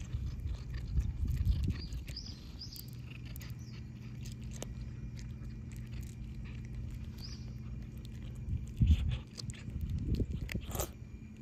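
Cat chewing dry kibble from a hand, with scattered small crisp crunches over a low rumble, and a louder low thump about nine seconds in.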